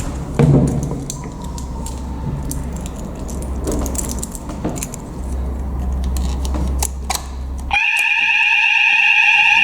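Keys jangling and clicking over a low hum, then about eight seconds in a fire alarm sounder starts with a loud, continuous high-pitched electronic tone as the system goes into alarm during a test.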